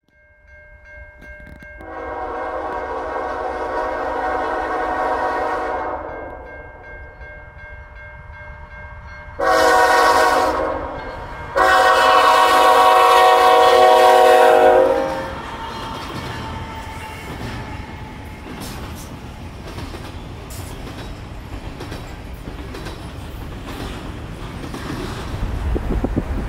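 Freight locomotive horn sounding three blasts for a level crossing: one long blast, then after a pause two more close together, the last held longest. Then the rumble and clatter of a double-stack container train rolling past.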